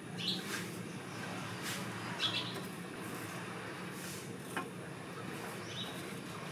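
Spatula scraping and scooping scrambled-egg omelette in a frying pan, a few light scrapes and taps against the pan, with birds chirping briefly a few times in the background.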